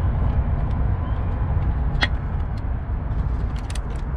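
Steady low mechanical rumble, with one sharp click about halfway through and a few light clicks near the end.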